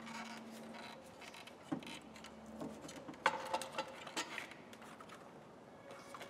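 Faint clinks, clicks and rattles of metal parts and fittings being handled and fitted by hand in a car's engine bay, with a quick cluster of sharp clicks about halfway through. A low steady hum in the first half stops near the middle.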